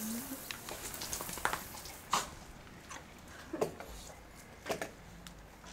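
A dog licking its lips: a few faint, scattered wet smacks and clicks.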